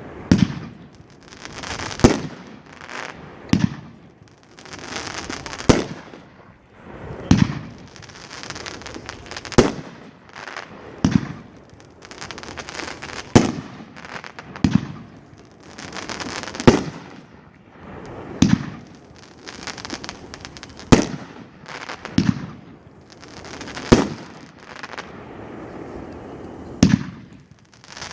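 A 500 gram consumer firework cake (World Class Midnight Sunburn) firing a series of shots. There is a sharp thump about every one and a half to two seconds, each followed by a hissing spray that fades before the next shot.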